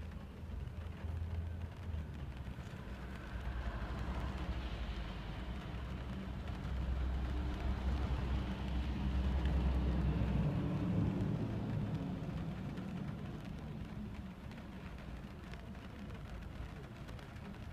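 Low rumble of a city bus passing close by in wet street traffic, heard through glass, swelling to its loudest about ten seconds in and then fading. A faint patter of rain runs underneath.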